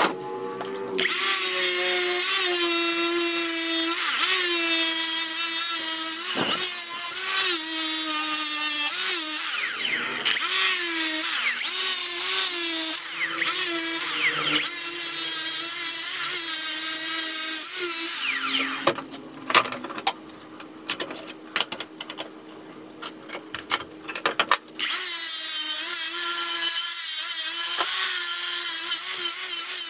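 Milwaukee angle grinder with an abrasive disc grinding a steel lawnmower blade clamped in a vise; the motor whine dips in pitch each time the disc bites into the steel and recovers as it eases off. It stops for about six seconds past the middle, with scattered clicks and scrapes, then starts grinding again.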